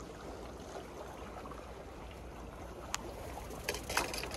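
Sea water lapping and sloshing against an embankment, steady throughout, with a sharp click about three seconds in and a few more quick clicks near the end.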